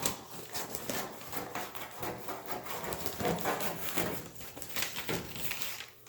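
Paper pattern rustling and crinkling as it is handled and pressed by hand against a car body panel, a steady stream of small irregular crackles.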